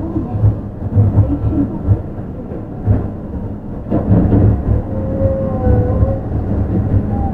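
Onboard running sound of a Yui Rail 1000 series straddle-type monorail car: a steady, uneven low rumble of its rubber tyres on the concrete guideway. About halfway through, a faint whine from the Hitachi IGBT VVVF inverter and traction motors joins in.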